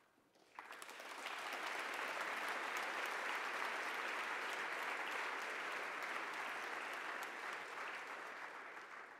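Audience applause in a hall: clapping starts about half a second in, builds quickly to a steady level and begins to fade near the end.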